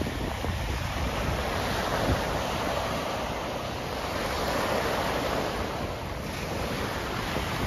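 Small choppy waves breaking and washing over a pebble beach, a steady surf hiss that swells about halfway through, with wind buffeting the microphone.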